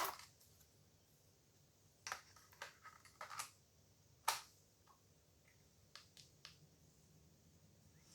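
Sharp plastic clicks and rattles of a DJI Air 2S drone battery being detached and reinstalled: a loud click at the start, a run of smaller clicks about two to three seconds in, and another loud snap about four seconds in.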